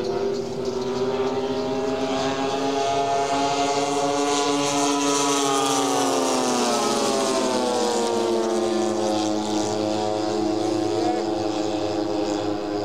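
Propeller engines of radio-controlled scale Douglas Skyraider warbird models flying past: a steady engine drone whose pitch climbs a little, then drops about six seconds in as the planes go by, settling lower.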